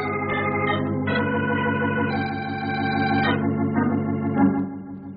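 Organ music bridge between radio-drama scenes: sustained organ chords that change about every second, then fade out near the end.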